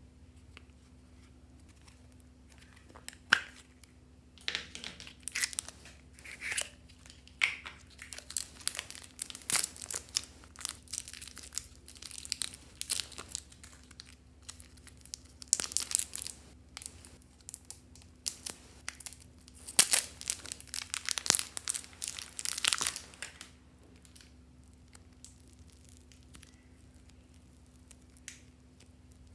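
Thin plastic wrapper on a lump of modelling clay crinkling and tearing as it is peeled off, in uneven spells of crackles that stop about six seconds before the end. A single sharp click comes about three seconds in, as the clay's plastic tub is handled and opened.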